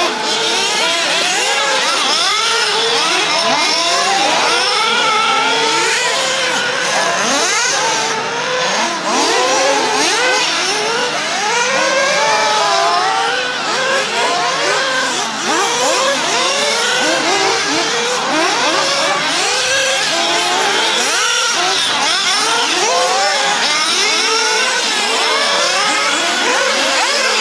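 Several 1:8 scale nitro off-road RC buggies racing together. Their small glow engines rev up and drop back over and over, giving many overlapping rising and falling whines.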